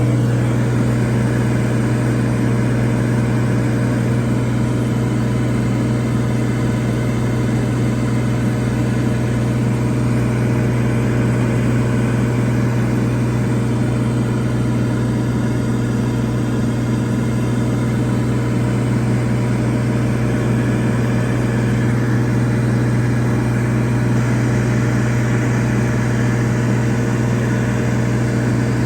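Cirrus SR22's six-cylinder Continental engine and propeller running with a steady low drone, heard from inside the cockpit.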